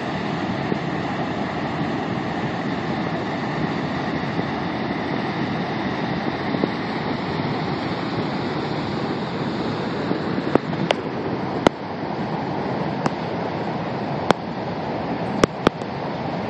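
Steady rushing of Ohiopyle Falls, the Youghiogheny River pouring over a wide rock ledge. A handful of sharp clicks come in the second half.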